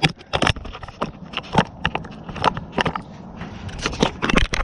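Hand tools and fasteners clinking and clicking, in irregular sharp clicks that bunch together near the end.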